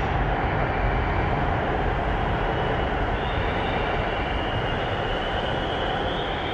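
Keio Line electric train running out past the platform of an underground station, a steady rumble slowly fading. About three seconds in, a high whine comes in and rises slightly in pitch.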